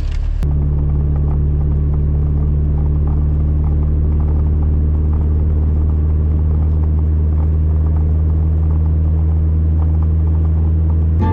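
Steady low drone of a car driving, with an even low hum and no change in pitch.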